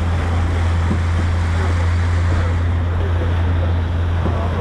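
A boat's engine running with a steady low drone under way, with wind and rushing water over it.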